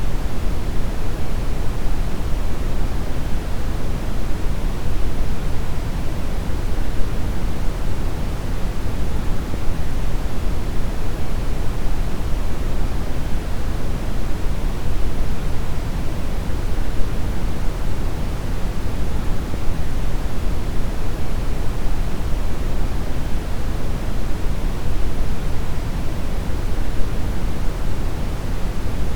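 Synthetic brown noise: a steady, deep rushing hiss with most of its weight in the low end, unchanging throughout.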